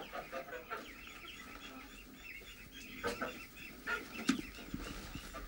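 Hens clucking, fairly quietly, with a few short sharp sounds between three and four and a half seconds in.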